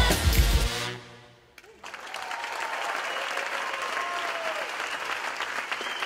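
Pop song with singing ends about a second in, then, after a brief hush, an audience applauds steadily.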